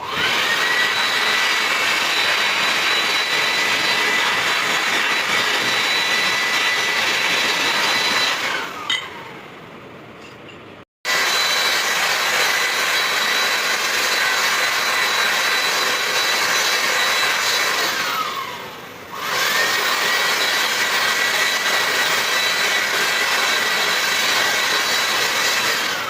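High-speed power grinder running with a steady high whine, cleaning carbon from turbocharger parts. It is released and spins down with a falling pitch three times: about a third of the way in, again about two-thirds in with a quick restart, and once more at the end.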